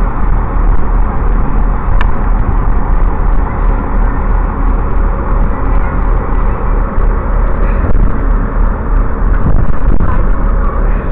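Class 158 diesel multiple unit's underfloor diesel engine running steadily, heard close up, with a sharp click about two seconds in.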